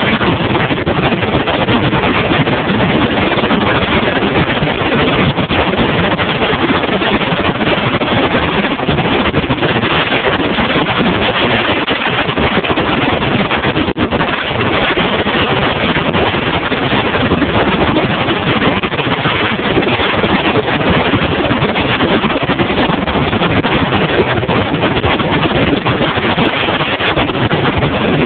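Bass boat running at speed over choppy water: a steady, loud rush of wind and water noise.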